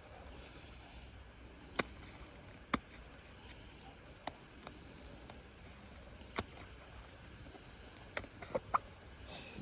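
Scissors snipping through a chicken's wing flight feathers: about seven sharp, separate snips at uneven intervals, three of them in quick succession near the end.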